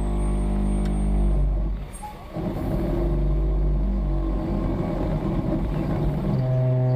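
Concrete mixer truck's Caterpillar C13 diesel engine running steadily while the truck is parked at the pour. Its sound drops briefly about two seconds in, and the engine note changes near the end.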